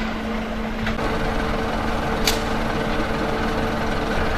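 Heavy truck diesel engine running steadily, its note stepping up to a higher steady pitch about a second in. Two sharp knocks sound over it.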